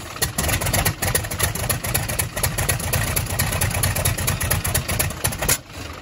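Cessna 195's radial engine just after catching on a start, running with a rapid, uneven popping over a low rumble, with a brief dip about five and a half seconds in. It is the first run after a carburetor rebuild that replaced a leaking float needle valve, which had been flooding the engine rich and stopping it from starting.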